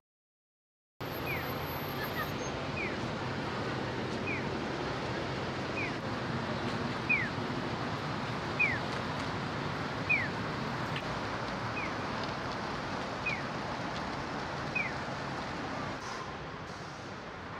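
Silence for about a second, then steady street traffic ambience. Over it, a short falling chirp repeats about every one and a half seconds.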